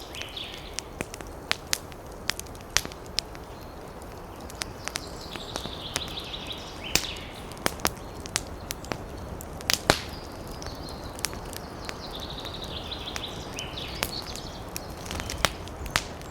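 Wood campfire crackling, with frequent sharp pops over a steady low hiss. A songbird sings a fast, high trill twice, about five seconds in and again about twelve seconds in.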